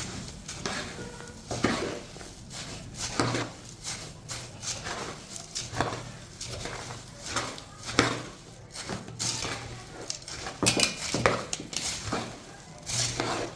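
Spoon clinking and scraping in a bowl as chatpate, a puffed-rice snack, is mixed: irregular clinks all the way through.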